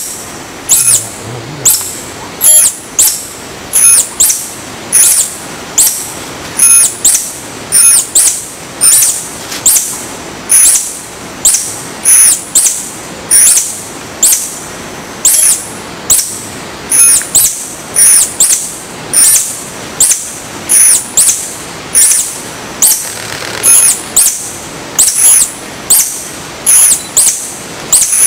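Philippine tarsier calling: a long run of short, very high-pitched chirps with a quick slide in pitch, repeated about one to two times a second.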